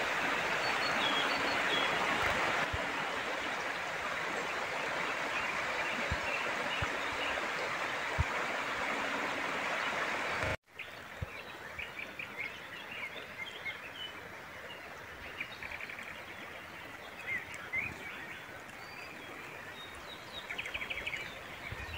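River water rushing over shallows in a steady hiss. About halfway through it cuts off abruptly to a quieter flow, with small birds chirping over it.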